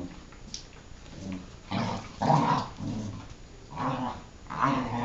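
Cardigan Welsh Corgis growling at each other in rough play, in several bursts, the loudest about two seconds in.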